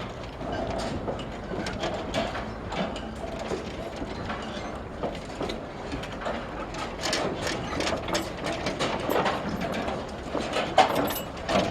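Ratchet-and-gear mechanism of a floating wave power plant running, with dense, irregular clicking and clattering and one sharper click near the end.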